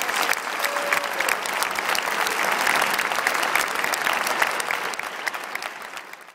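Audience applauding, a dense crowd of hand claps that fades away near the end.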